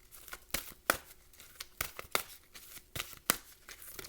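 Tarot or oracle cards being handled and shuffled: a string of short, sharp, irregular snaps and clicks, roughly two or three a second.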